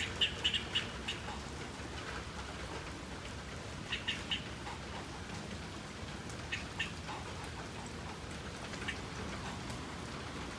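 Squirrel chirping: short, sharp calls in small quick groups of one to four, a few seconds apart, over a steady hiss of rain.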